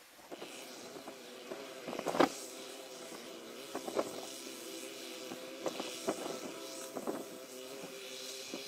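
A vehicle running with a steady low drone, broken by irregular sharp clanks and knocks, the loudest about two seconds in.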